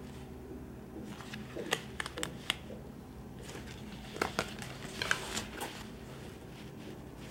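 Faint rustling and crinkling of a paper hang tag and jersey fabric being handled, with scattered light clicks in two short clusters over a low steady room hum.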